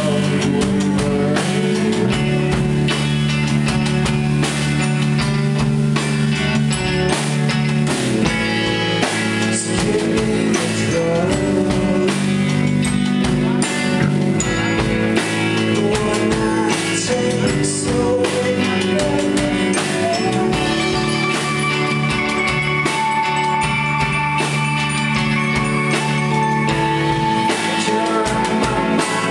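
Live rock band playing: electric guitars, electric bass and a drum kit, loud and steady throughout.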